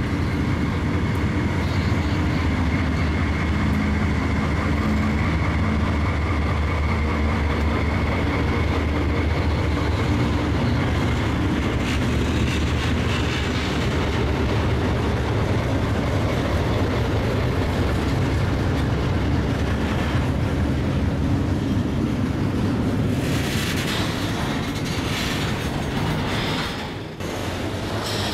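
Diesel-electric freight locomotives passing close by with their engines running, a steady low hum. Near the end the freight cars roll past, their wheels clacking over the rail joints.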